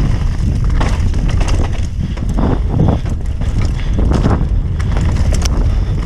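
Mountain bike rattling and clattering over a rocky dirt trail at speed, with wind buffeting the microphone as a steady low rumble.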